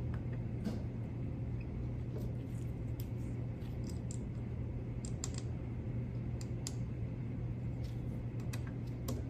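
Small sharp clicks of a dental torque wrench at irregular intervals as implant prosthetic screws are given their final torque, over a steady low hum.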